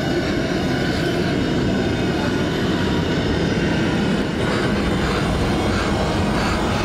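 Horror-film sound design: a loud, dense rumbling drone with a fast rattling texture, building tension.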